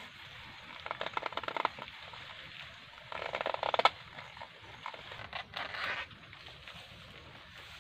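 Crackling, tearing bursts as a banana flower is twisted and snapped off its stalk on the banana plant, with the plant's leaves rustling. Three bursts, the loudest ending in a sharp snap about four seconds in.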